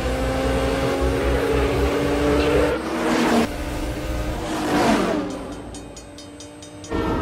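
Car engines revving hard and accelerating in a drag race, a supercharged muscle-car V8 and a sports car, with rising revs about three seconds in and again near five. The engine noise then drops away for about a second and a half, leaving a fast, even ticking, before the engines come back loud at the end.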